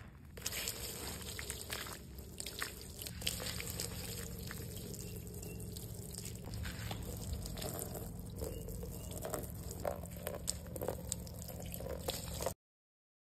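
Water pouring and splashing over a soapy rubber car floor mat, rinsing off the foam, with scattered sharper splashes; it stops abruptly near the end.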